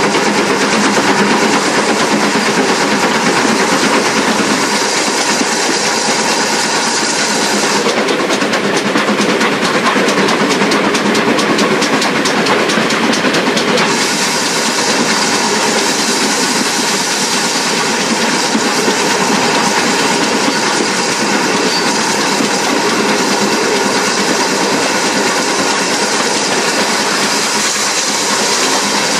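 GWR 4575-class 'Small Prairie' 2-6-2T steam tank locomotive running, heard from its cab: a loud, steady mix of steam hiss, engine and wheel-on-rail clatter. For several seconds in the middle a fast, even ticking comes through.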